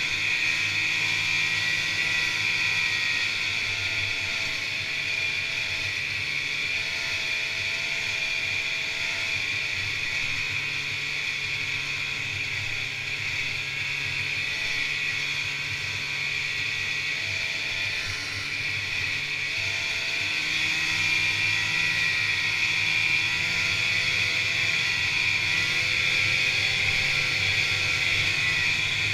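Snowmobile engine running steadily as the sled travels along a trail, heard from aboard the machine; it grows a little louder about 20 seconds in.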